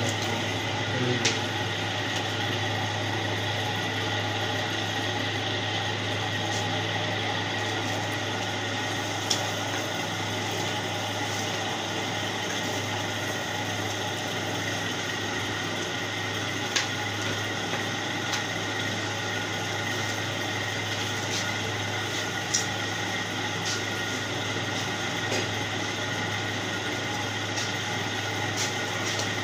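Steady hum of a running machine or motor, with a handful of short sharp clicks or knocks scattered through it.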